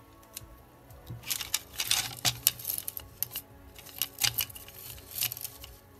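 Packaging being opened by hand, rustling and crinkling in several irregular bursts, busiest in the second and third seconds and again near the end.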